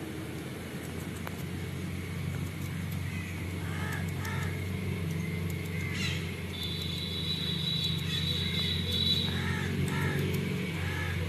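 Steady low outdoor rumble like distant road traffic, with a bird giving short calls about four seconds in and several more near the end. A thin high tone holds for a few seconds past the middle.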